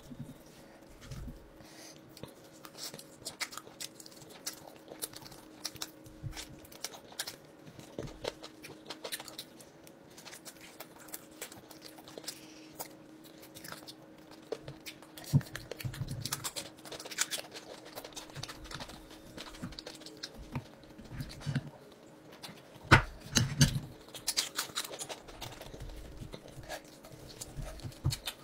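A man eating roast chicken with his hands: irregular chewing and wet mouth clicks, with meat being pulled apart, over a faint steady hum.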